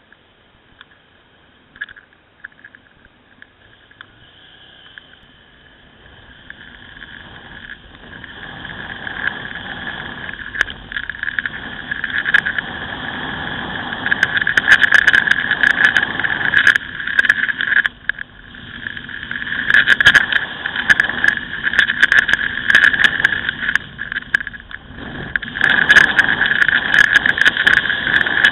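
A Ducati Scrambler's air-cooled L-twin engine and the wind rushing over it, picked up by a camera on the bike. Quiet while the bike waits at a light, the sound builds steadily as it pulls away and gathers speed, then stays loud, falling back briefly a few times.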